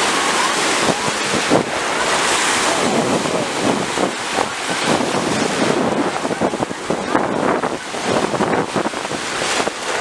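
Sea surf breaking and washing through shallow water, with wind buffeting the microphone.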